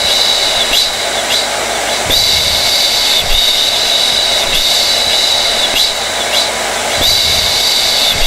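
Hair dryer running steadily: a constant rush of air with a high-pitched motor whine that wavers briefly now and then.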